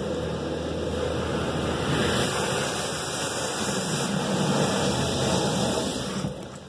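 Car wash spray jets spraying water onto a car, heard from inside the car as a loud, steady rush. The rush drops away about six seconds in.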